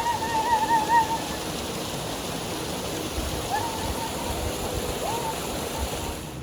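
Steady rushing of a waterfall and stream. A high wavering tone sounds over it in the first second, and two short rising tones come around the middle.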